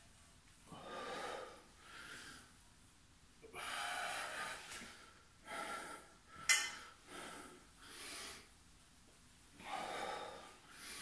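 A man breathing hard from exertion, about eight forceful breaths in and out through nose and mouth as he works through a single-leg balance exercise. A single sharp click comes about six and a half seconds in.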